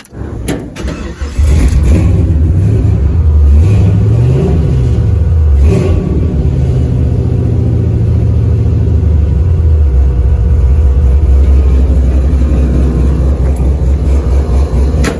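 Built 5.3-litre LS V8 in a shop truck starting up: a short crank, then it catches about a second and a half in. It is blipped up and back down once around four seconds in and settles into a steady idle.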